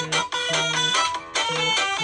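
A smartphone ringtone melody playing: a quick tune of short pitched notes over a low note that repeats about twice a second.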